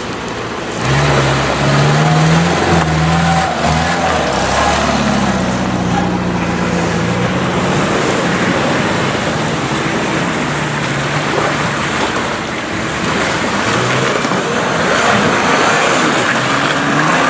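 Off-road 4x4 engine revving hard under load. The engine note rises over the first few seconds and then holds, over a steady rush of noise. It swells again near the end.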